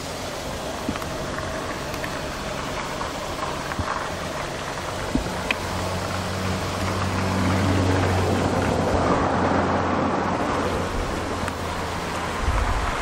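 Steady outdoor traffic noise, with a motor vehicle's low engine hum swelling in the middle. Near the end, wind buffets the microphone.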